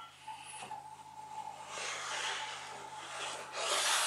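A small plywood block slid by hand across a table saw's tabletop, rubbing and swishing twice, the second time louder, over a faint steady low hum.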